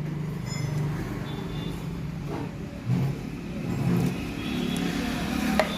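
A motor vehicle engine running nearby, swelling twice in the middle, with a sharp click near the end.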